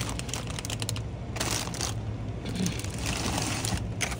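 Intermittent rustling and handling noise over a steady low hum.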